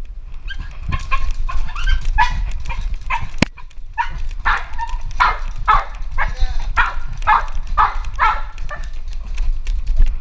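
Jack Russell terrier barking in a run of short, high barks, sparse at first and then quicker, a little under two a second: a dog begging to play.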